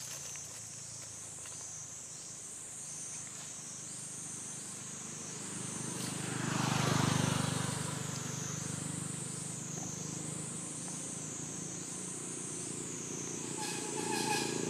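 A high, steady insect chorus that rises and dips in a regular pulse about every second and a half. About halfway through, a motor vehicle swells past and fades, the loudest sound. Another engine starts to build near the end.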